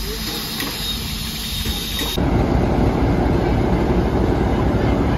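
Steam locomotive hissing steam from its cylinders as it creeps along, with a few light clicks. About two seconds in the sound cuts to a louder, steady mechanical noise with a low hum from the locomotives standing at the station.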